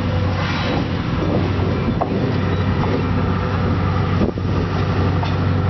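Diesel locomotive engine running with a steady low drone as the locomotive rolls slowly past close by.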